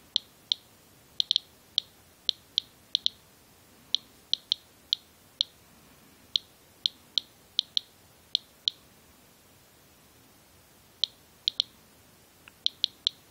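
Medcom Inspector USB Geiger counter clicking for each detected count, at random intervals of roughly two a second, with a lull of about two seconds past the middle. The display shows an elevated rate of about 176–178 counts per minute against a normal background near 40, which the owner takes for something radioactive on his coat hood.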